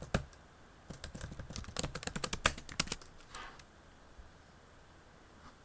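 Rapid keystrokes on a computer keyboard, a quick run of clicks that stops about three and a half seconds in.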